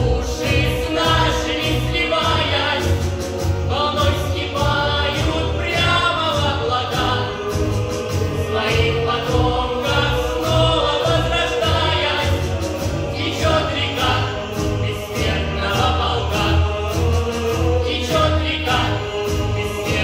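Children's choir singing a song to instrumental accompaniment with a steady beat and bass line.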